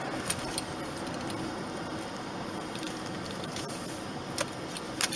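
Steady road and engine noise heard from inside a car's cabin, with a few faint clicks and ticks.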